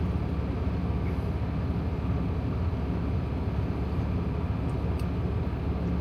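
Steady low rumble of a Freightliner Cascadia semi truck running, heard from inside the cab.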